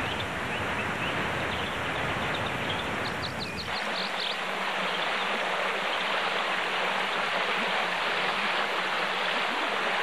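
Rushing water: a waterfall pouring, with a deep rumble under its rush. About four seconds in it switches abruptly to the lighter, higher rush of a shallow stream over rocks.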